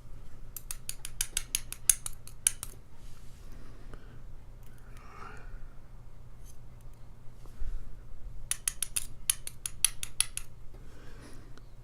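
Small metal parts of a padlock clicking and tapping in quick runs, two bursts of rapid clicks, as a stuck pin is worked at in its chamber during disassembly.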